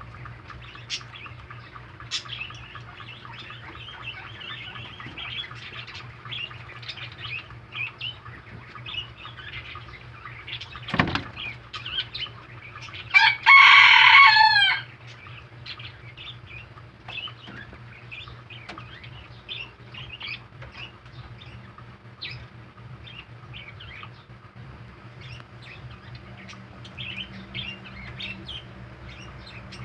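Baby rabbits chewing fresh vegetables: a steady run of small, quick crunching clicks. About halfway there is a single thump, then a loud pitched call lasting about a second and a half.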